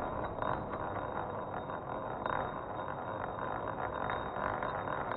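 CrunchLabs coin-spinner toy in use: a steady rattling whir with many faint quick clicks running through it.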